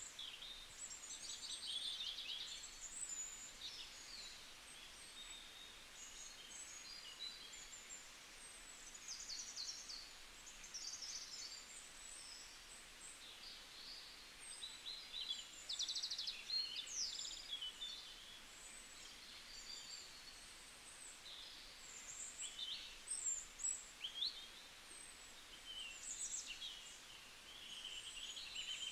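Several birds chirping, with short high calls, quick trills and sliding notes that overlap all through, over a faint steady hiss.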